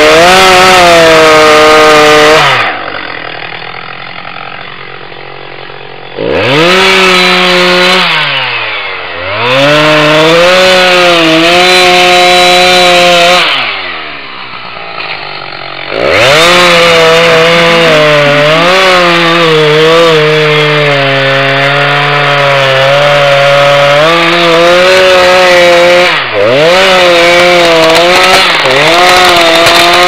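Two-stroke chainsaw felling a large tree. It runs at high revs under load, its pitch sagging and recovering. Several times it drops back toward idle for a second or more, then revs up again.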